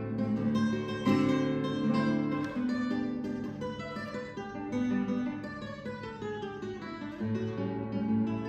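Acoustic guitar music, plucked and strummed, with a run of falling notes a little past the middle.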